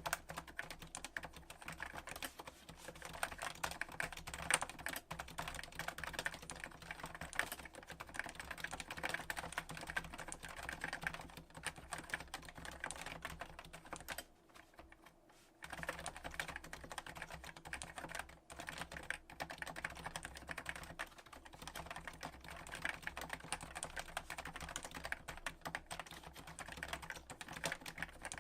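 Steady fast typing on a Topre Realforce 87U keyboard with Hi-Pro keycaps and 55 g domes, its switches and stabilizers unlubed; dense clacking keystrokes with a brief pause about halfway through.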